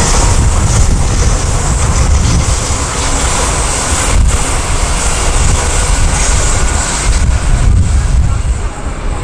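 Sydney Trains double-deck electric trains passing on the tracks, a steady rumble of wheels on rail, with wind buffeting the microphone. A second train comes in near the end.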